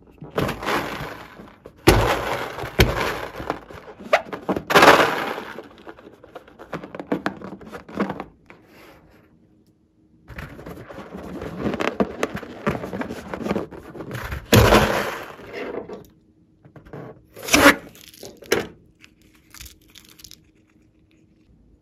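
A rubber balloon being handled and squeezed over a bowl, with rubbing and crinkling of the rubber and several sharp knocks, as its filling is emptied out into the bowl.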